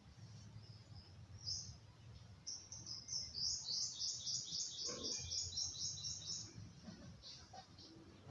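A small animal chirping: a quick run of short, high chirps, about four a second, for several seconds in the middle, over a faint low hum. A light tap sounds about five seconds in.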